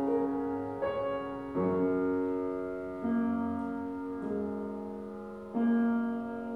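Piano playing slow, sustained notes and chords: five fresh strikes a second or so apart, each left ringing and slowly fading into the next.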